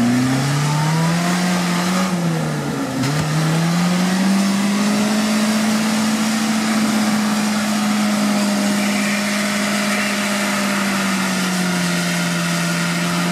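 Suzuki Samurai's engine revving hard under load in deep mud. The revs dip about two seconds in, climb back and are held steady, then drop off near the end.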